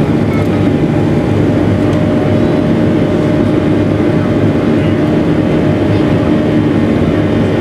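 Boeing 737-700 heard from the cabin on its takeoff roll: the CFM56-7B turbofan engines running at takeoff thrust, a loud, steady roar with a low hum, mixed with the rumble of the wheels on the runway.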